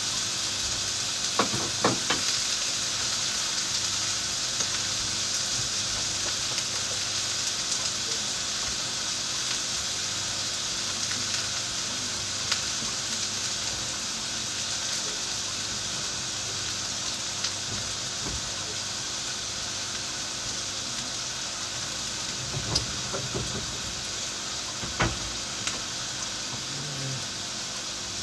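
Beef and long green onion sizzling in a frying pan, a steady frying hiss that eases slightly over time. A few sharp light knocks sound about 2 seconds in and again near the end.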